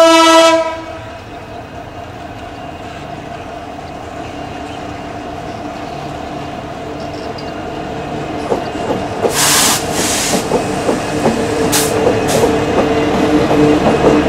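KAI CC 205 diesel-electric locomotives heading a coal train. A loud horn blast cuts off about half a second in. Then the diesel engines' hum grows steadily louder as the locomotives draw near, with wheels clicking over the rails and two short hisses in the second half.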